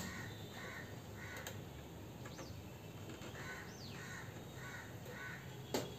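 A crow cawing in two runs of about five caws each, with a pause of nearly two seconds between the runs. A single sharp click comes near the end.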